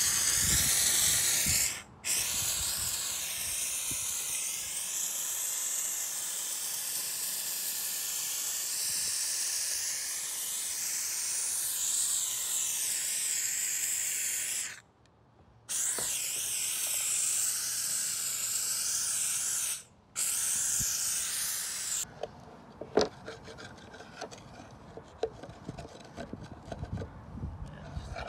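Handheld steam cleaner hissing as it blasts steam onto a grease-caked subframe part, breaking off briefly three times. About 22 seconds in the steam stops, and a screwdriver scrapes and clicks at the loosened grime on the part.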